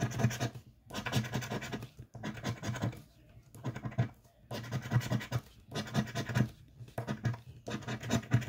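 A green scratcher disc rasping the scratch-off coating off a lottery ticket in rapid back-and-forth strokes. The strokes come in bursts of about a second, with brief pauses between them.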